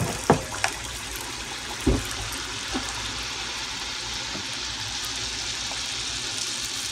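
Teler pitha batter of rice powder and flour deep-frying in hot oil in a wok: a steady sizzle. A couple of sharp clicks come near the start and a knock about two seconds in.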